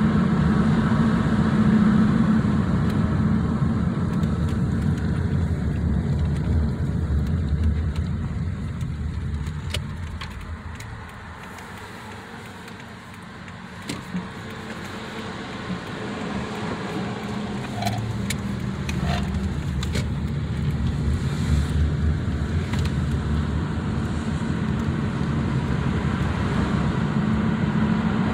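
Road and engine noise of a moving car heard from inside the cabin: a steady low rumble that drops to a quieter stretch about halfway through, then builds again, with a few small clicks.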